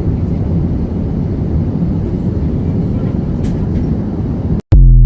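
Steady airliner cabin noise: the low rush of the engines and air system heard from inside the passenger cabin. Near the end it cuts off abruptly and a very loud, short electronic burst follows, then a few notes stepping up in pitch.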